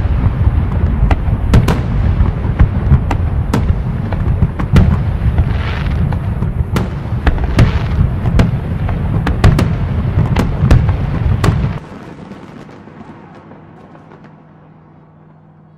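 A dense fireworks barrage: a continuous rumble of aerial shell bursts, studded with many sharp bangs. About 12 seconds in it cuts off abruptly, leaving a faint, fading crackle.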